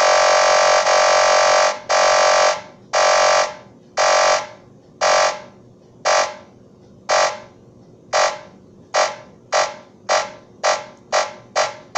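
SN76477 complex sound chip's VCO tone, electronic and buzzy. It holds steady for about two seconds, then breaks into repeating gated beeps of the same pitch, about one a second at first. The beeps come shorter and faster until there are roughly three a second near the end.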